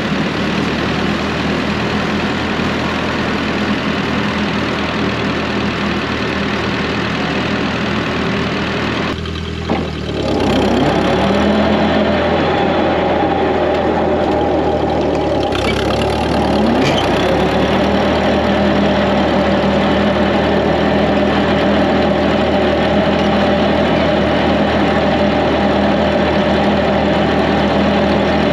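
1948 Ford 8N tractor's four-cylinder engine running steadily, driving a PTO finish mower. About nine seconds in the sound dips briefly, then carries on slightly louder with a steady hum.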